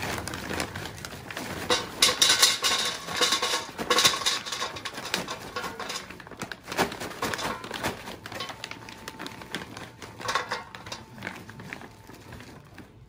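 Extra-large pillow charcoal briquettes poured from their bag into the Bronco drum smoker's metal charcoal basket, clattering and knocking against the basket and each other, with the bag rustling. The clatter is densest a couple of seconds in, then comes again in shorter spurts as more are tipped in.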